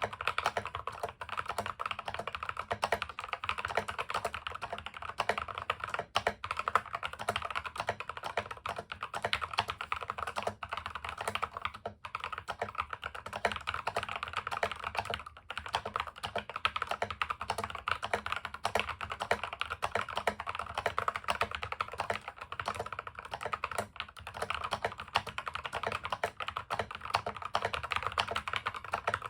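Continuous typing on a Keychron V2 mechanical keyboard with lubed and filmed C3 Equalz Tangerine 67 g linear switches, a three-layer tape mod and dye-sub keycaps, its acoustic silicone case pad removed. Keystrokes follow each other rapidly, with a few brief pauses.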